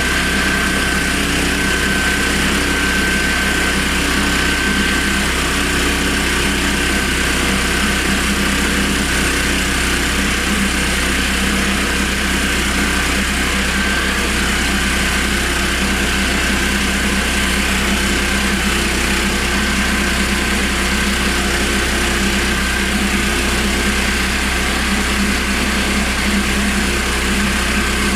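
Honda GX390 single-cylinder four-stroke petrol engine on a homemade portable sawmill, running steadily, with a thin high whine over the engine note.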